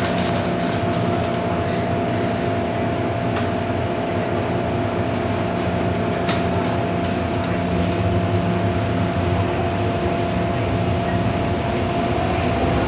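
Interior of an MTR M-train metro car pulling out of the station into the tunnel: a steady hum and rumble of the running train. A high whine comes in near the end, with a faint rising tone as it gathers speed.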